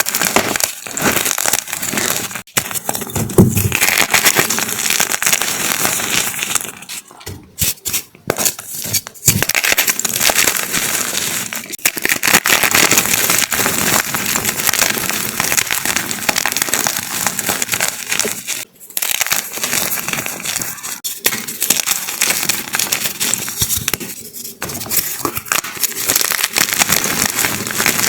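Large block of gym chalk being crushed and crumbled, a dense, crunchy crackling with a few short pauses.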